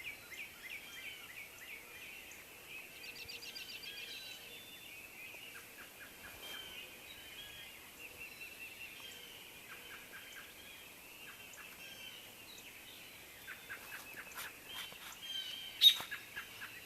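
Songbirds chirping and calling throughout, with a fast trill about three seconds in, and a single sharp click near the end.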